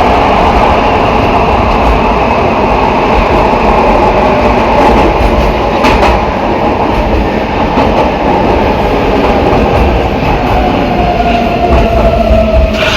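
Metro train's traction motor and inverter whining during braking, the whine slowly falling in pitch as the train slows, over steady wheel-and-rail rumble. A growl from the reduction gearbox comes with the motor sound; it is typical of this particular train, 225.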